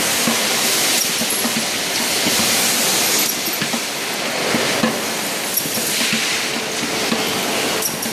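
Semi-automatic riveting machine with an indexing table running: a steady hiss that swells and fades about every two seconds, with light clicks and clinks.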